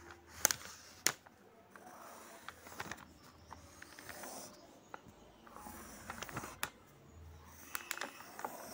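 Graphite pencil scratching across paper in short strokes as lines are drawn, with a few sharp clicks between the strokes.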